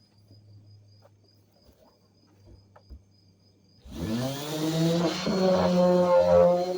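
Electric sander switched on about four seconds in: its motor spins up with a rising whine and then runs steady. Before that, a faint cricket chirping in an even pulse.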